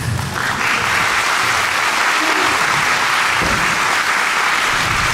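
Hall audience applauding, steady clapping that swells up in the first half second and then holds even.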